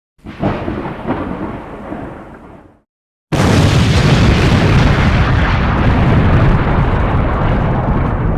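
Explosion-like intro sound effect: a rumbling boom that fades out over about two and a half seconds, a moment of dead silence, then a louder rumbling blast that starts suddenly and holds.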